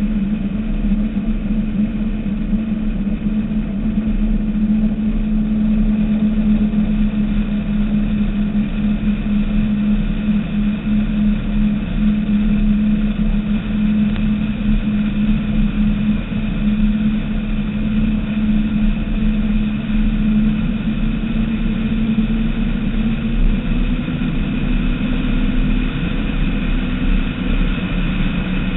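Skater powerboat's engines running at a steady high cruising speed, a constant drone over a low rush of wind and water.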